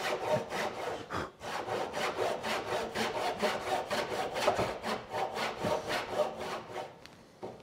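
Dovetail saw cutting a half-blind dovetail pin in wood by hand, along a knife line, in quick, even back-and-forth strokes that stop shortly before the end.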